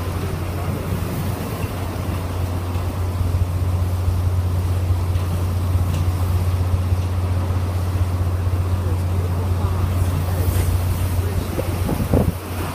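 Hurricane-force wind blowing steadily, with heavy low wind buffeting on the phone's microphone. There is a brief thump near the end.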